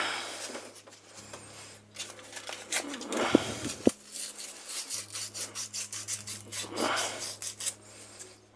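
Sandpaper rubbing rust off the metal handle piece of FELCO 7 secateurs in quick back-and-forth strokes, about four a second, with a sharp click about four seconds in.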